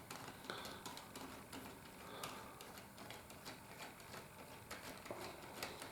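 Faint, irregular clicking of plastic building-block parts and gears being handled and worked by hand.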